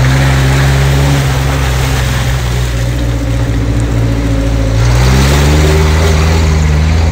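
Off-road 4x4's engine running under load while driving over a rough, muddy dirt track, with tyre and road noise throughout. It picks up speed about five seconds in, its pitch rising and then holding.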